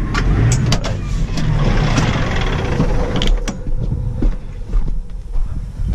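Massey Ferguson 6480 tractor engine idling steadily, with the spreader discs stopped. Several clicks and knocks in the first few seconds as the cab door is opened and the driver climbs out, with a rushing noise that dies down after about three seconds.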